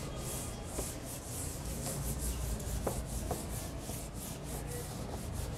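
Hand-held duster wiped over a whiteboard in quick back-and-forth strokes, a steady run of soft swishes as the marker writing is erased.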